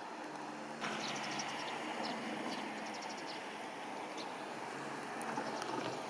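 Steady rush of a shallow stream's running water mixed with wind on the microphone, growing louder suddenly about a second in. Faint, short high chirps come through in a few small clusters.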